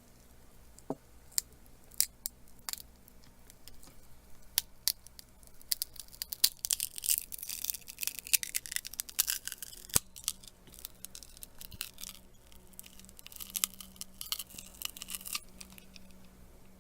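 Scattered small clicks of a tool against the phone, then several seconds of crackly scraping and tearing as the old display and its adhesive are peeled out of a Samsung Galaxy S5's frame.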